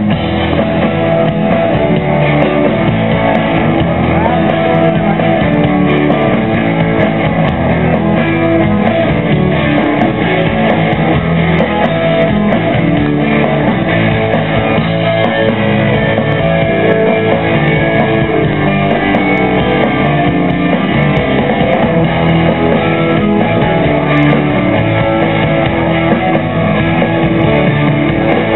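Music with guitar, rock-style, loud and steady.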